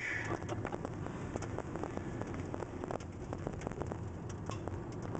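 Car driving through a road tunnel, heard from inside the cabin: a steady low rumble of tyres and engine with a dense, irregular patter of sharp ticks on the car.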